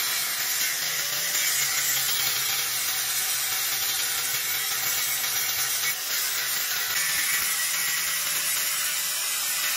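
Angle grinder's abrasive disc cutting into the hardened steel of a leaf-spring knife blank: a steady high hiss of disc on steel over the grinder's motor hum, with a short break about six seconds in.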